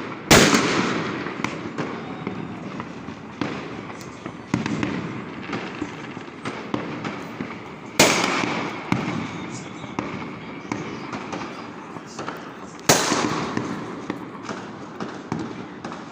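Fireworks exploding: three loud booms with echoing tails, one just after the start, one about halfway through and one near the end, among scattered smaller pops and crackles.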